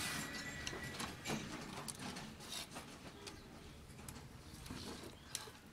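A CRT television's main circuit board being turned over by hand: scattered faint clicks and light knocks as the board and its plastic frame shift and bump against the bench.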